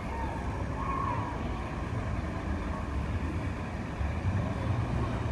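Street traffic: cars driving past below, with engine and tyre noise growing louder as a pickup truck passes near the end, and wind rumbling on the microphone.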